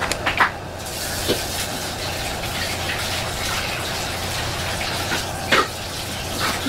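Soy sauce pouring from a large plastic bottle onto a spoon and into a pot, a steady trickling pour, with a few light knocks of the spoon and bottle.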